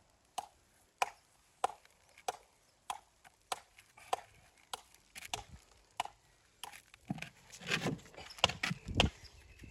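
A hammer tapping on stone in a steady rhythm, about one and a half sharp strikes a second. Near the end come a few heavier, deeper knocks of stone against stone.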